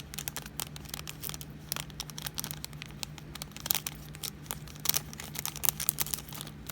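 Small plastic zip bags crinkling and crackling in irregular bursts as a bag of diamond painting drills is poured into another bag.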